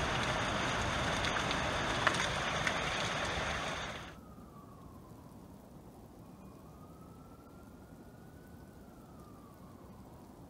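Heavy rain pouring and streaming down a rain chain, with a few sharp drip ticks. It cuts off about four seconds in, leaving a faint distant siren slowly wailing up and down.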